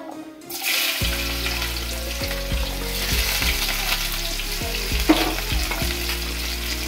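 Chopped onions sizzling in hot oil in a kadai, the frying hiss starting about half a second in as they go into the pan, with a wooden spatula stirring and scraping against the pan.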